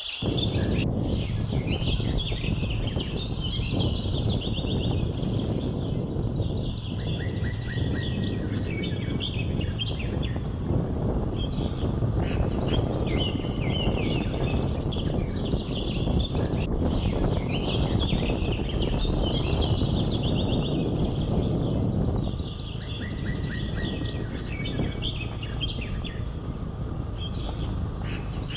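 Birds chirping in repeated bursts over a steady high insect buzz, with a continuous low rushing noise underneath.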